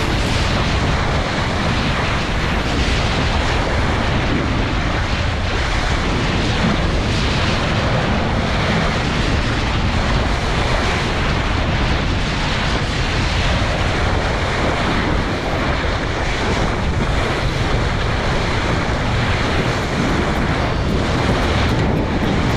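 Water rushing and splashing along the hull of a sailing ship moving fast through choppy sea, with strong wind buffeting the microphone. The sound is steady throughout.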